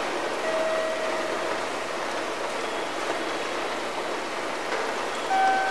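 Railway station platform ambience between announcements: a steady rushing background noise, with brief faint steady tones about half a second in and again near the end.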